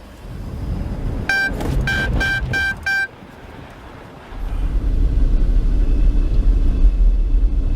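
A quick series of short electronic beeps, like an in-car warning chime, then from about four seconds in a steady low rumble of the Range Rover Velar moving.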